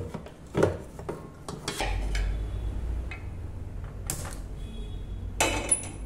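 Metal kitchenware being handled: a stand mixer's stainless steel bowl and metal cookware give a series of clinks and knocks, with a louder clatter near the end.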